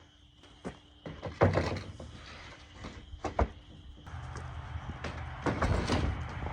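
Wooden frame panels of a hinged chick brooder knocking and clattering as they are handled and folded together, with several sharp knocks, the loudest about a second and a half in. A steady low hum comes in about four seconds in.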